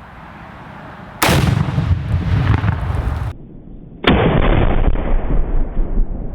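Two loud blasts of a rifle-detonated Tannerite exploding target, about a second in and again about four seconds in, each followed by a long rolling rumble of echo.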